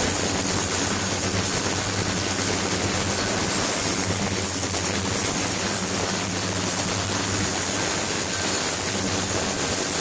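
Ultrasonic tank running, its transducers driving the water into cavitation: a steady hiss with a thin high whine and a faint low hum.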